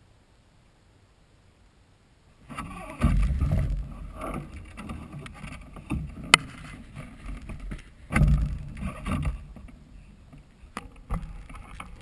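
Wind buffeting an action camera's microphone in irregular gusts, starting about two and a half seconds in, with a sharp click about six seconds in.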